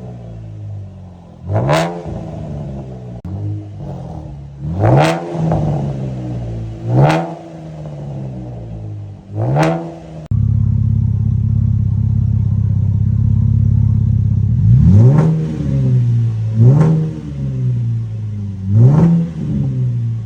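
Car engine revved in short blips through a modified exhaust with the mufflers removed, each rev rising and falling back, about every two seconds. About halfway through it changes abruptly to a louder, steady low running. Near the end the blips come back three times.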